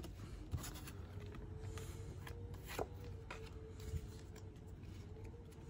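Faint rustle and soft clicks of Pokémon trading cards being slid one off another in the hands, over a faint steady hum.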